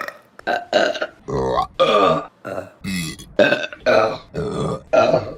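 A woman burping, a quick series of short belches close to two a second.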